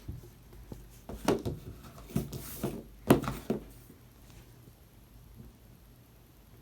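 Hands patting and squishing Sloflo foam-bead putty: a handful of short soft pats and squishes in the first half, then only faint handling noise.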